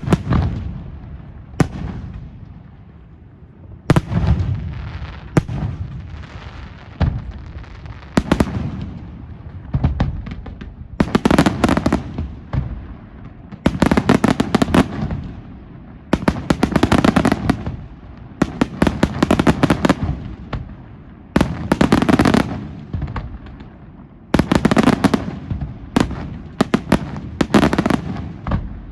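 Pirotecnica Senatore fireworks display: loud shell bursts, a few sharp single bangs in the first several seconds, then repeated dense crackling volleys every second or two.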